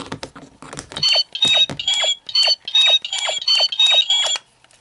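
Power Rangers Super Megaforce Legendary Morpher toy's keypad sounding as its buttons are pressed: a quick run of about nine electronic beeps, roughly two and a half a second, alternating between two pitches, each with a plastic button click. It is sounding at its louder setting, with a Ranger key inserted.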